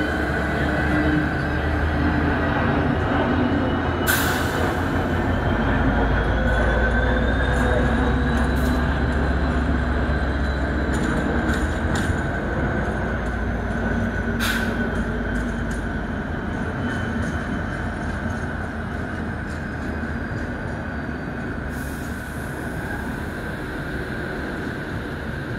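GBRf Class 69 diesel-electric locomotive pulling away from a stand running light, its EMD 710 twelve-cylinder two-stroke engine powering up with a deep rumble and a whine that rises in pitch over the first several seconds. The engine sound fades gradually as the locomotive draws away, with two sharp clicks about 4 and 14 seconds in.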